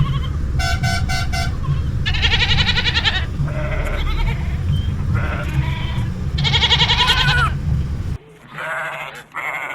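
Goats bleating, a series of quavering calls about a second each, one after another, over a low rumble. About a second in there are four short, evenly spaced steady tones, and about eight seconds in the rumble stops abruptly and two more bleats follow.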